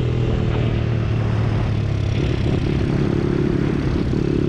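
Honda CT70 mini bike with a YX 140cc single-cylinder four-stroke engine running under way while being ridden; its note shifts higher about halfway through.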